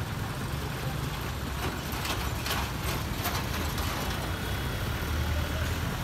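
Street traffic on the road below: motorcycles and cars passing with a steady low engine rumble over the general noise of the street.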